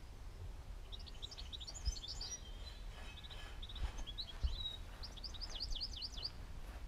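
A bird singing in three runs of quick high chirps, over a steady low rumble with a few soft thumps.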